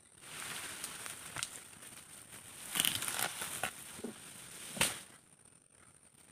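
Rustling and crackling of dry vegetation underfoot, with clusters of snaps around three seconds in and one sharp crack near five seconds, then dying down.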